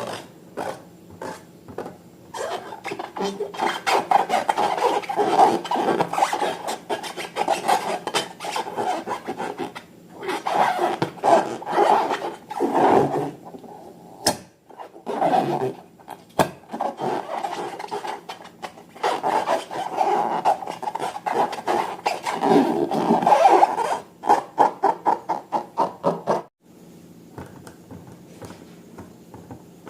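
Slime being squeezed and worked by hand: bouts of rapid, crackly, squelching clicks and pops, thinning to scattered single clicks near the end.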